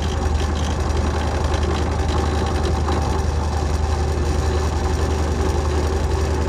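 Benchtop drill press motor running steadily with a low hum while the bit is fed down into a steering-wheel spoke.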